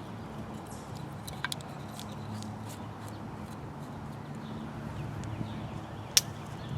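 A few sharp, light clicks from handling a Swiss Army Farmer pocketknife's folding saw blade, the clearest about a second and a half in and again near the end. A steady low hum runs underneath.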